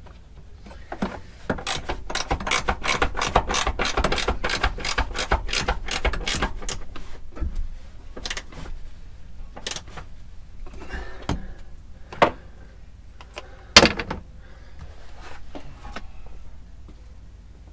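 Hand ratchet wrench clicking in a fast, even run of strokes, about five clicks a second, then a few separate sharp clicks and knocks of tools on metal, the loudest near the end.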